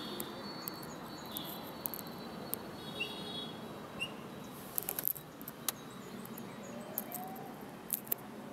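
Street ambience: a steady hum of traffic and town noise, with short bird chirps now and then. A cluster of sharp clicks comes about halfway through, with two more near the end.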